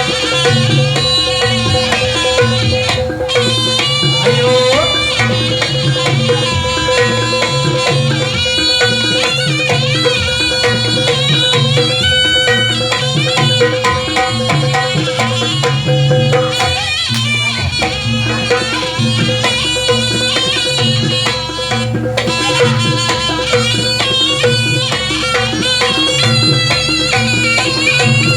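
Javanese barongan accompaniment playing loudly: hand drums keep a steady beat under a reedy wind melody that bends and ornaments over a constant held tone.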